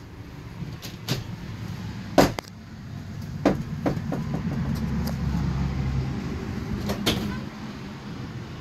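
Wooden cupboard doors in an RV being handled, opened and shut: several sharp clicks and knocks, the loudest about two seconds in. A low rumbling hum runs from about three seconds in to near the end.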